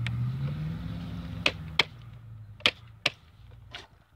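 HG P402 RC crawler's electric drive motor and gearbox humming, rising in pitch briefly and then dying away, with several sharp clicks and knocks from the truck. Its battery is running low, the owner thinks. Heard through a camera mounted on the truck.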